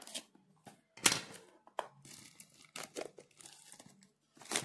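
Clear plastic shrink wrap being torn and crinkled off a small cardboard box by hand, in a handful of short rustles, the loudest about a second in.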